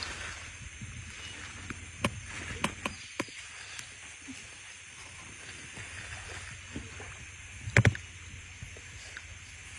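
Shallow stream water running, with a few short splashes and, just before the end, two loud slaps close together as a soaked cloth is swung and shaken out over the water.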